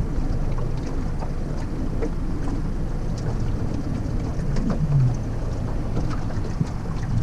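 Steady low rumble of wind on the microphone out on a boat at sea, with scattered light ticks and a brief low falling sound about five seconds in.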